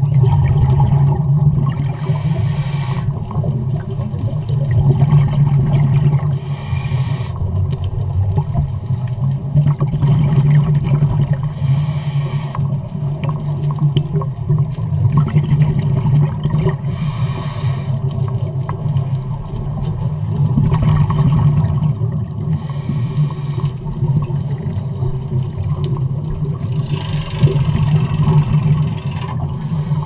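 Scuba diver breathing through a regulator underwater: a burst of hissing, bubbling breath about every five seconds over a steady low underwater rumble.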